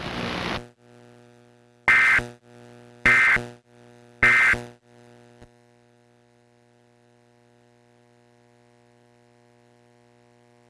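Emergency Alert System end-of-message data signal: three short, harsh digital bursts about a second apart, marking the end of the alert test. A faint steady electrical hum runs underneath.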